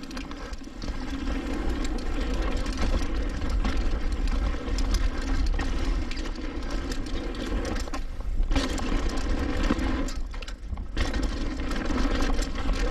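Mountain bike riding down a rough trail: wind rumbling on the camera microphone, tyres rolling over dirt and rock, and the bike rattling with many small clicks. The noise eases briefly twice in the latter half.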